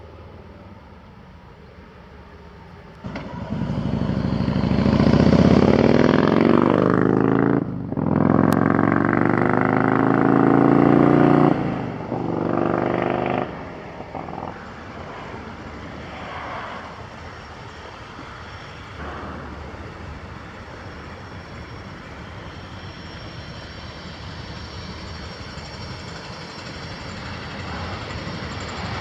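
An engine passes close by, loud for about ten seconds with its pitch falling as it goes, then settles into a steady, lower engine drone.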